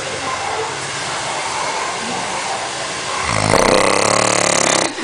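A man snoring heavily in a deep, drunken sleep after cachaça; a long, loud rasping snore comes about three seconds in.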